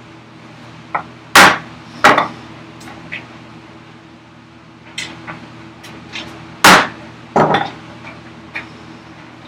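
A chisel being hammered into a wooden block to score a cut line. There are four hard blows, in two pairs: one pair about a second and a half in and the other near seven seconds. Lighter taps fall between them.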